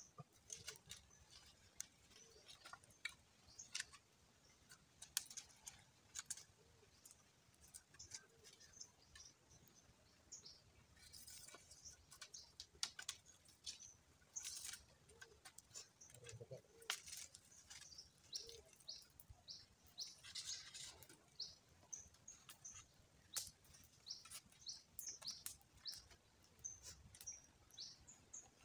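Faint birdsong: many short, high chirps, busiest in the last third, over light wooden clicks and knocks of sticks being handled and laid out on a stick rack.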